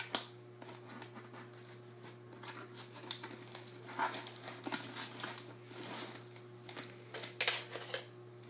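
Faint rustling and scattered clicks from hands working at a cardboard box insert and its tape, a little louder about four seconds in and again near the end, over a steady low hum.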